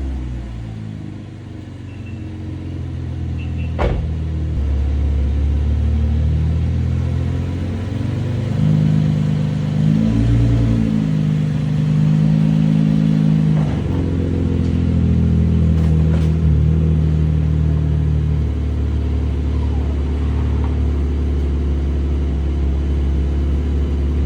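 2020 Chevrolet Camaro's 3.6-litre V6 running at low speed just after starting. The engine note rises and falls a little as the car is eased forward up onto ramps.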